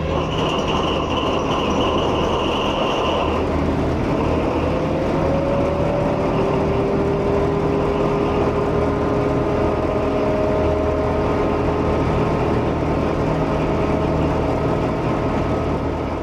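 SNCF BB 67400 diesel locomotive's engine running at a standstill: a steady deep rumble with whining tones over it. A high whine dies away a few seconds in, and a lower whine rises slightly in pitch shortly after.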